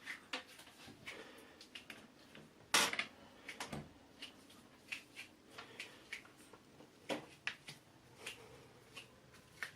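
Quiet handling and movement sounds: scattered soft clicks, knocks and rustles, with one sharper knock about three seconds in.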